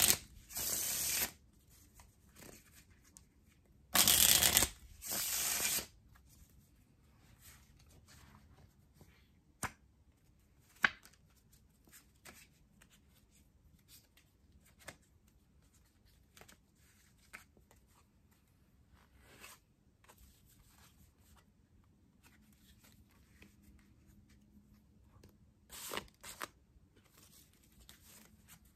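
Karnival Original deck of playing cards riffle-shuffled twice, loud at the start and again about four seconds in. Each riffle is followed by a softer second-long cascade as the cards are bridged back together. Then come scattered quiet snaps and clicks of cards being cut and handled in flourishes, with a short burst of card noise near the end.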